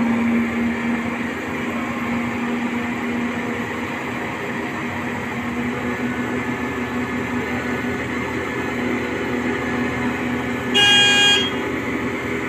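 Truck-mounted mobile crane's diesel engine running steadily with a low hum. About eleven seconds in, a horn gives one short toot, under a second long and louder than the engine.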